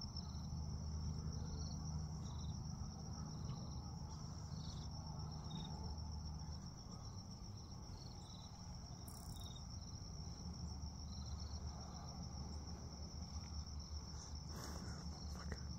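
Crickets trilling in one steady, high, finely pulsing note, over a low rumble. A short burst of noise sounds near the end.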